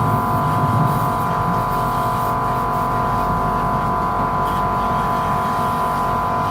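A motor-driven machine running steadily, a constant whine of several fixed tones over a low rumble.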